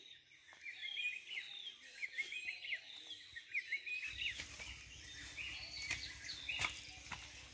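Small birds chirping, many short calls overlapping. About four seconds in, a low rumble joins underneath.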